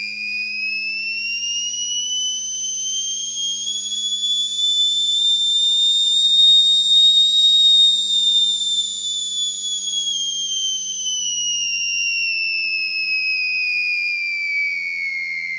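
A man producing a long, pure whistle-like tone with his mouth and throat, held without a break: the pitch rises slowly for about the first half, then glides back down.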